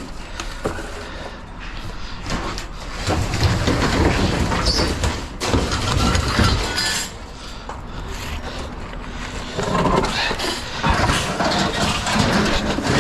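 Scrap metal being handled and knocked about: irregular clanks and scraping, heaviest in two spells, over a low rumble.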